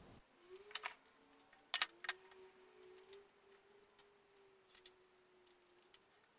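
Very quiet room with a few faint, sharp clicks and taps: a pair just under a second in, the loudest cluster about two seconds in and a weak one near the end, over a faint steady tone.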